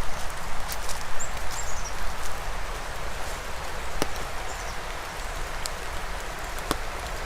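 Steady heavy rain with a rushing creek beneath it, and a few sharp drops tapping close by.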